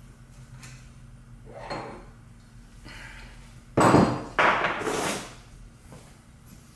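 Metal hand tools and parts clanking while the table handle is taken off a milling machine's power feed: a few faint knocks and a scrape, then two loud metallic clatters about four seconds in, half a second apart.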